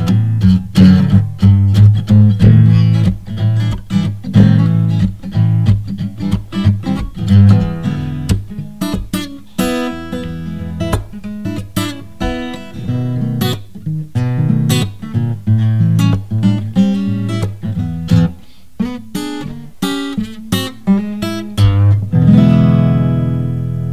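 Acoustic guitar music, plucked and strummed, ending on a held chord near the end.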